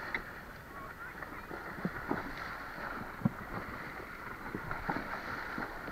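Horses wading through a river, water splashing and sloshing around their legs, with a sharp knock about three seconds in.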